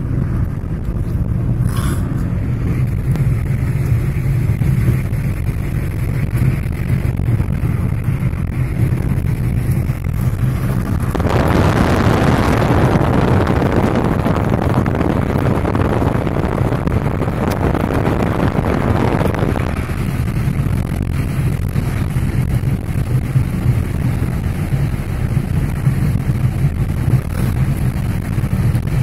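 Car driving at a steady speed, heard from inside the cabin: a continuous low rumble of engine and tyres on the road. A louder rushing hiss joins it for about nine seconds in the middle.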